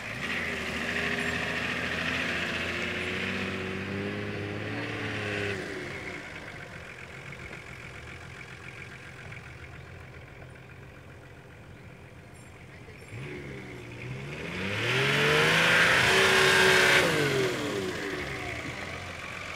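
Nissan off-road 4x4's engine revving under load for the first few seconds, easing to a quieter run, then revving hard again with its pitch rising and falling. It is loudest about fifteen to seventeen seconds in.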